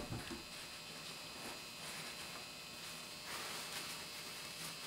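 Faint paper towel rustling as wet potato fries are blotted dry, with a short soft rustle about three and a half seconds in, over a steady faint high-pitched hum.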